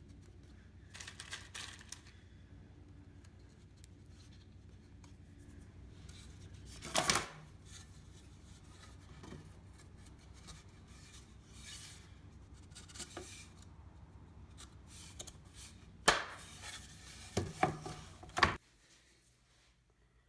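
Scattered workshop handling noises (rubbing, clicks and several sharp knocks) over a low steady hum, with the loudest knocks about seven seconds in and again near the end, where it all cuts off abruptly.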